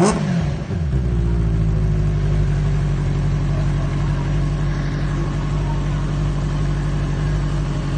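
Benelli TNT 600i's inline-four engine on its stock exhaust: a throttle blip falling back in the first second, then settling into a steady idle.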